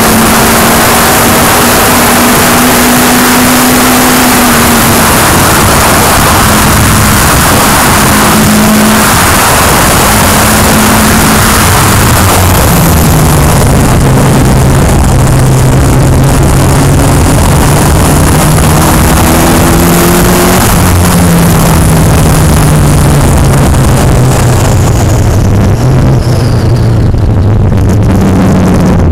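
An open-wheel track car's engine running hard around a circuit, heard from an onboard camera with loud wind and road noise over it. The engine note holds steady at first, drops a step about halfway through, then falls slowly toward the end as the car slows.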